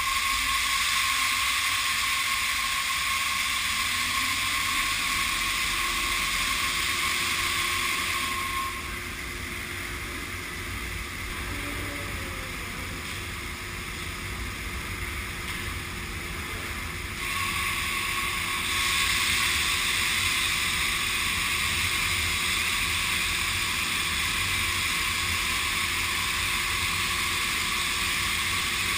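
Industrial welding robots at work on a car body panel: a steady hiss with a thin, constant high whine. About a third of the way in it falls back to a lower factory hum for several seconds, then the hiss and whine pick up again.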